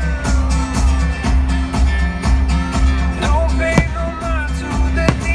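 Music with a steady pulsing bass beat and held pitched tones. A few sharp cracks cut through it, about four seconds in and again near the end.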